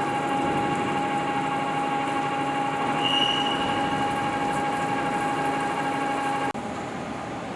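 Machine tool running at a workshop machining station, a steady whine over machining noise, with a short higher squeal about three seconds in. Near the end the whine cuts off abruptly and a quieter, rougher machining sound carries on.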